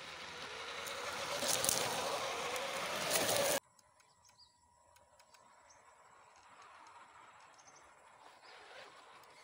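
Radio-controlled scale crawler trucks driving over sandy dirt toward the camera: electric motor and gear whine with tyre noise, growing louder, then cut off suddenly about three and a half seconds in. After that, faint outdoor ambience with short high insect and bird chirps.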